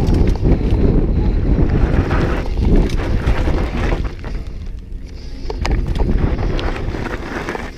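Wind buffeting the GoPro's microphone over the rumble and clatter of a Trek Remedy 9 mountain bike rolling fast down rocky sandstone trail, with scattered sharp rattles. It eases somewhat about four seconds in.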